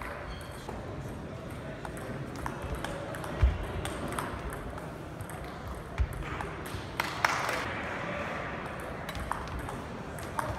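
Table tennis rally: the celluloid ball clicks sharply and irregularly off the bats and the table. A few heavier low thuds break in, the loudest about three and a half seconds in.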